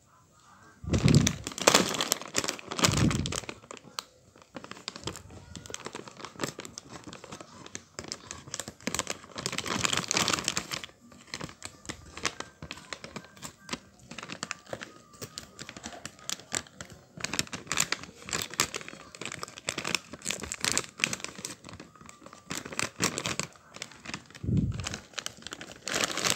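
Plastic tortilla-chip bag crinkling and rustling as hands squeeze and tear it open, in bursts, with a few dull knocks as the bag is pressed, twice near the start and once near the end.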